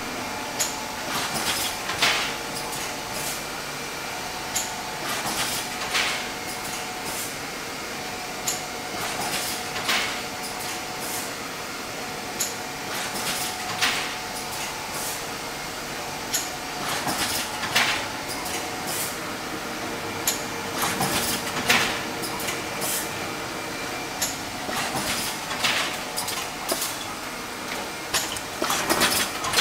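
CD production line running: a Netstal Discjet 600 disc injection moulding machine feeding a Singulus Skyline1 downstream line. A steady machine hum with a faint held tone is broken every one to four seconds by short sharp clacks and brief hisses.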